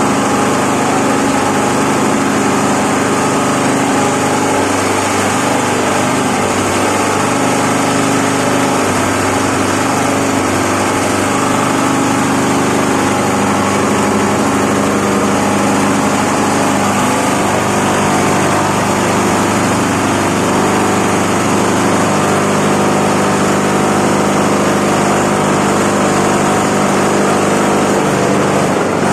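Tobacco-stem chopping machine running at a steady speed: a constant mechanical drone with a steady, many-toned hum.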